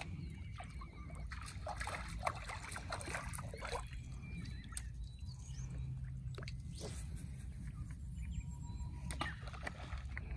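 Lake water sloshing and splashing gently against the stony shore, with many small irregular splashes and clicks over a low background rumble.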